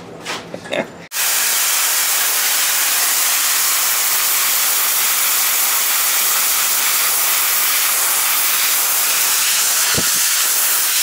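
Compressed-air blow gun on a shop air hose blowing continuously: a loud, steady hiss that starts suddenly about a second in. A brief low thump near the end.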